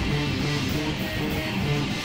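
Metal band playing live: distorted electric guitar riffing over bass, a dense and continuous wall of sound.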